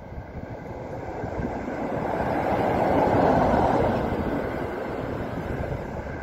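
A vehicle passing by: a rushing noise that swells to a peak about three seconds in and then slowly fades.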